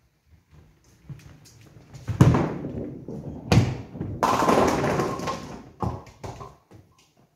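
Nine-pin bowling ball and pins: two heavy thuds about two and three and a half seconds in, then about a second of rolling rumble and clatter as the pins are knocked down, and one more knock near the end.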